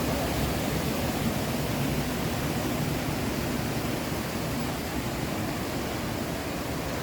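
Steady rush of a waterfall: an even wash of falling water with no breaks.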